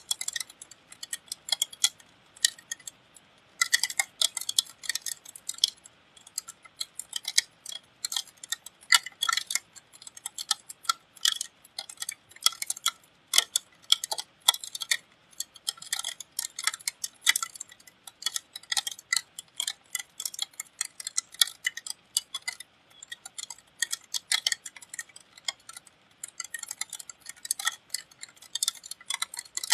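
Raindrops striking a hard surface close by: irregular sharp ticks and pings, several a second, uneven in loudness.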